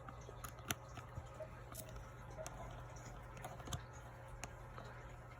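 Faint, scattered light clicks and taps as small laptop parts (screws and rubber feet) are handled against the laptop's case, over a low steady hum.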